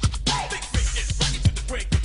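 Hip hop music with a steady drum beat and a rapped vocal.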